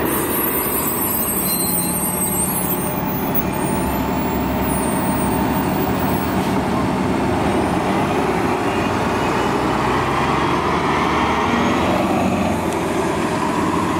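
Transit bus engine and drivetrain running steadily as the bus pulls slowly past at close range, with an articulated bus following near the end.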